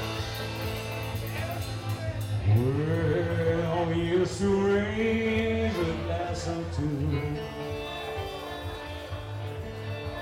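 A live cover band playing, with a male lead vocalist singing over it. About two and a half seconds in, his voice slides up into a long held line.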